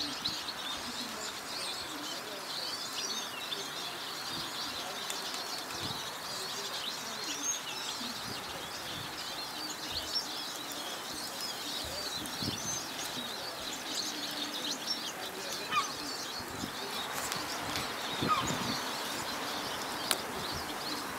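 Songbirds chirping and singing in a busy background chorus, thinning out later, with a few short taps in the second half.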